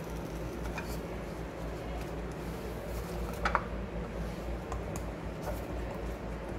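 Food-prep handling: a plastic-gloved hand picking up sliced vegetables from ceramic bowls and laying them in a glass baking dish, with faint small taps and one brief louder rustle about three and a half seconds in, over a steady low hum.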